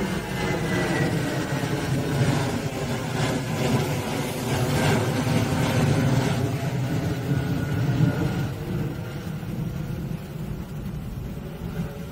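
Twin-engine jet airliner passing overhead in its takeoff climb: a rough engine roar, with a whine that slides down in pitch near the start as the jet goes by. It fades over the last few seconds as the aircraft climbs away.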